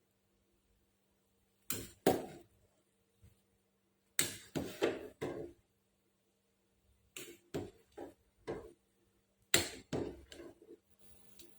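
A kitchen utensil knocking and clinking against cookware in four short clusters of sharp knocks, each ringing briefly.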